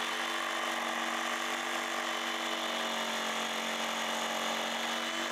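Electric jigsaw running at a steady, even speed, its blade sawing through a wooden kitchen worktop board to cut out a piece.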